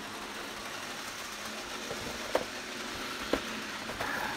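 A steady low background hum with a few sharp, separate clicks: one a little over two seconds in, one about a second later, and two more near the end.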